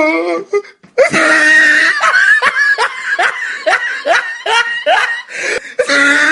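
Laughter: after a short gap, a drawn-out note breaks into a quick run of short falling 'ha' sounds, two or three a second.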